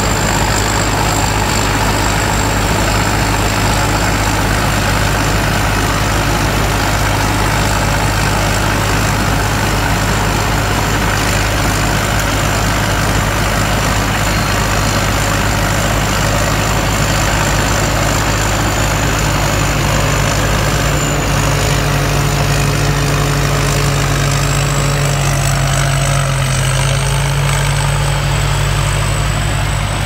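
Tracked rice combine harvester (Sit Charoen build) running under load while cutting and threshing rice: a steady, loud engine-and-machinery drone with a continuous high whine over it. A deeper hum grows stronger about two-thirds of the way through.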